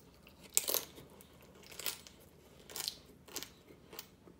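Crunching and chewing a hard-shell taco close to the microphone: about five separate crunches, roughly one a second, the first the loudest.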